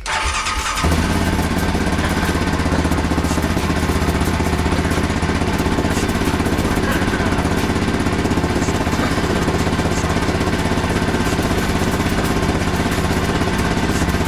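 A small engine or motor running steadily at one constant speed, with a fast, even pulsing.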